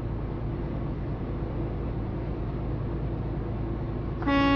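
Semi-truck cab at highway speed: a steady low engine and road drone. Near the end, the truck's horn sounds loudly, a warning to a car cutting in close in front.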